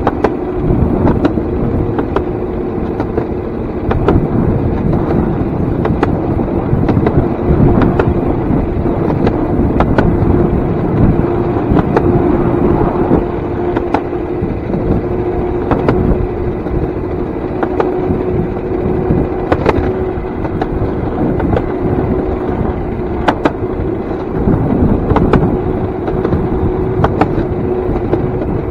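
DIY electric railcart rolling on old, rusty rail track: a continuous rumble of steel wheels on the rails with a steady whine, broken by sharp clacks every second or two as the wheels cross rail joints.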